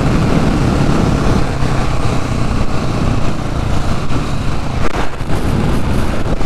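KTM 690 SMC-R's single-cylinder engine running steadily at road speed, mixed with heavy wind rush over the helmet camera's microphone.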